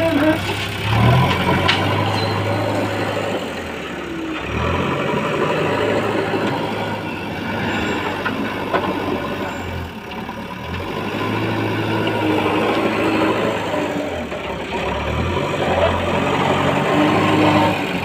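JCB backhoe loader's diesel engine running at close range, its note rising and falling several times as it is throttled up and down while manoeuvring.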